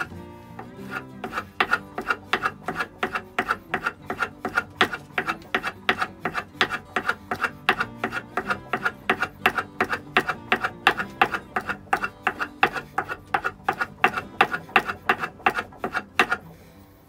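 Steel plane iron being honed on a sharpening stone: quick back-and-forth rubbing strokes, about three a second, that stop shortly before the end. Soft background music plays underneath.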